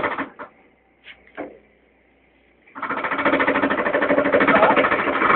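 Small engine buzzing at high revs while towing a load by rope. The sound drops out almost completely for about two and a half seconds soon after the start, with only a few faint clicks, then comes back abruptly.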